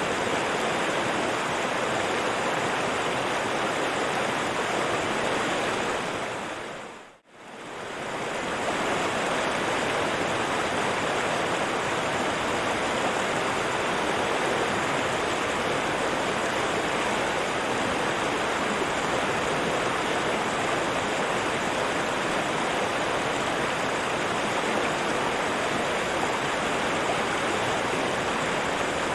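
River water flowing steadily, an even dense hiss. About seven seconds in it fades out briefly and comes straight back in.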